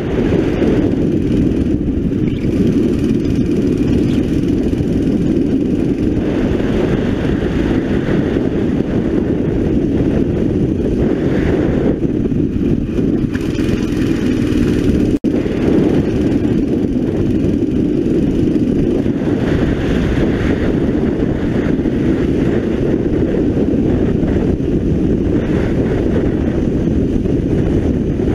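Onboard sound of a 9 hp four-stroke racing kart engine running hard, its note dropping as the kart slows for the corners and rising again as it accelerates out onto the straight. The sound cuts out for an instant about halfway through.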